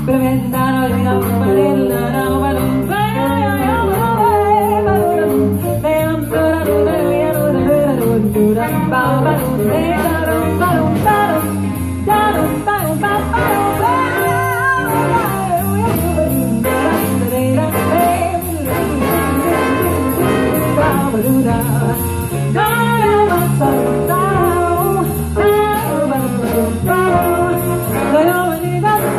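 Live big band jazz: a woman sings at the microphone over a full band of saxophones and brass, with a steady beat.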